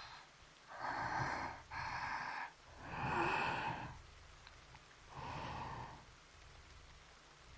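A young woman's soft breaths close to a KU100 binaural dummy-head microphone: four slow breaths in and out, the third the loudest, over a faint steady hiss.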